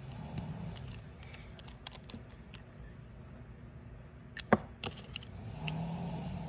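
Light clicks and taps of a plastic gel polish bottle and its brush cap being handled, with one sharp click about four and a half seconds in and a few smaller ones after it.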